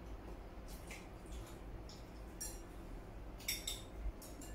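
Chopsticks tapping and scraping against porcelain bowls while eating: scattered light clinks, a cluster of them about three and a half seconds in, over a low steady hum.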